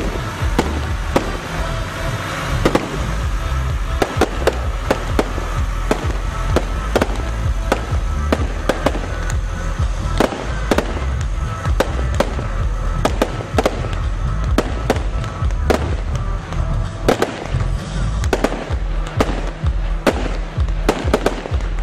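Fireworks display: a steady run of sharp bangs and crackles from rising comets and bursting aerial shells, coming thicker near the end, over loud music from the show's soundtrack.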